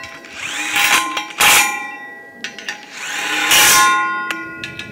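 Cordless power drill driving bolts into a stainless steel pipe's base plate in three short bursts. The pipe rings with a metallic clang between them.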